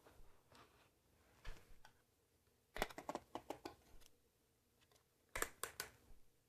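Faint clicks and light knocks of a folding monitor stand being lifted out of a foam box insert and handled, with a few scattered ticks and two short clusters of clicks about three and five and a half seconds in.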